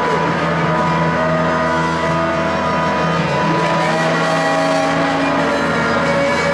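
Noise music: a dense, unbroken wall of sound made of held droning tones, with a steady low drone under higher tones that slowly shift in pitch.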